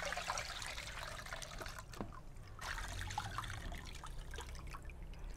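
Water and wet millet poured slowly from a calabash gourd into a plastic basin, trickling and splashing. This is the decanting step of washing millet, which leaves grit and small stones behind in the gourd.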